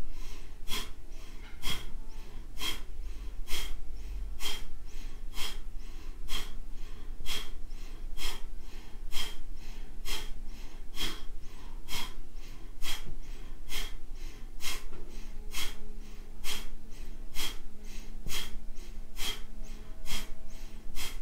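Kapalabhati (breath of fire): short, forceful exhales pushed out through the nose in a steady rhythm, about two a second, with a passive inhale between each.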